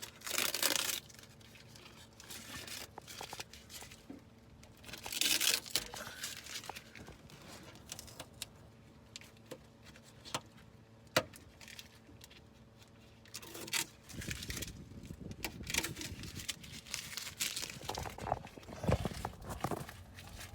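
Masking paper and tape being torn and crumpled in several short rustling bursts, with a few sharp clicks in between.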